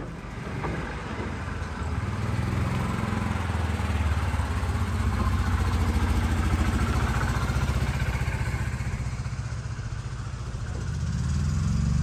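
Golf cart engine running as the cart is driven, a steady low drone that swells and eases off, dipping about ten seconds in and rising again near the end.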